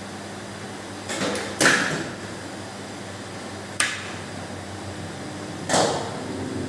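Sharp clicks and knocks of the autoclave's rotary mains switch being turned by hand: a cluster about a second in, one crisp click midway and another knock near the end, over a steady low hum.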